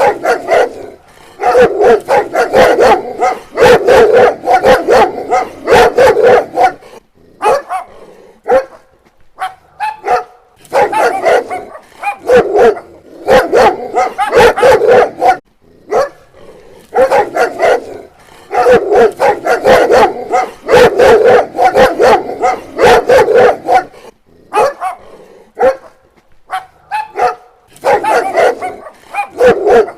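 Dog barking rapidly and repeatedly, in volleys of several seconds broken by short pauses.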